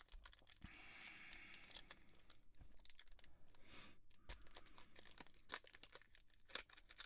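Faint rustling and crinkling, with scattered light clicks, from trading cards and a foil card-pack wrapper being handled.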